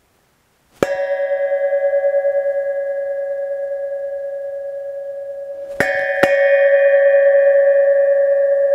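A 3-inch stainless steel exhaust pipe, standing on end, struck and ringing like a tubular bell: one strike about a second in, then two more in quick succession near six seconds. Each strike leaves a long, clear ringing of several tones that fades only slowly.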